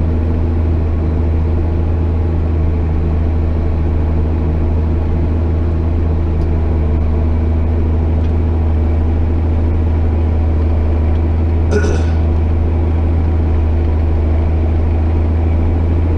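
JCB Fastrac 8250 tractor engine running steadily under load while pulling a plough, a constant low drone. A brief click about twelve seconds in.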